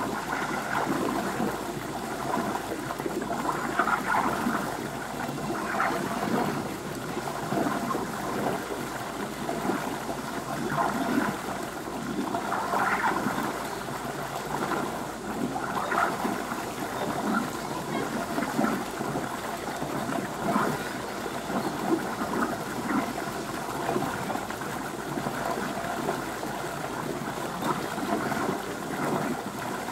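Water running and trickling steadily into the beavers' pool, with irregular louder gurgles.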